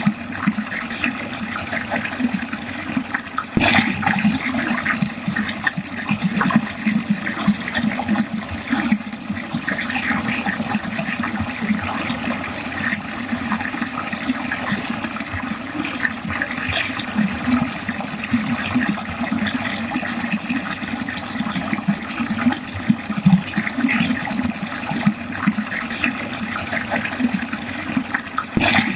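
Water running steadily down a drain, a continuous splashing flow.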